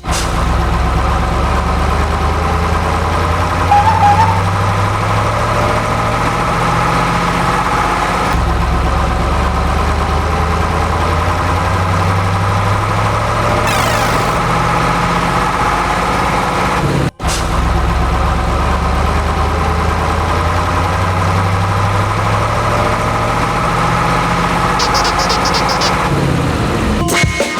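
A heavy vehicle's engine running steadily, swelling and easing in a repeating cycle about every eight seconds, with a brief cut-out about seventeen seconds in.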